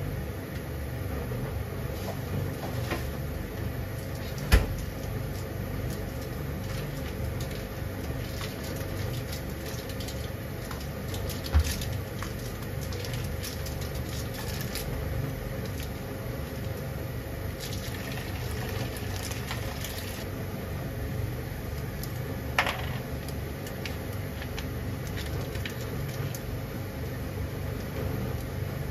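Gas burner flame under a pan of water coming up to a simmer: a steady low rumble with a faint hiss, broken three times by a sharp tick.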